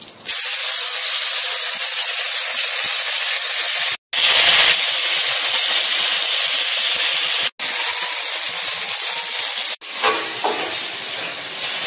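Mustard and green-chilli paste frying in hot oil in a kadai: a loud, steady sizzle that cuts out abruptly three times for an instant.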